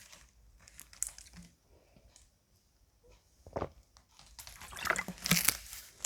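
Drinking Sprite from a plastic bottle: scattered sips and gulps, busiest a little before the end.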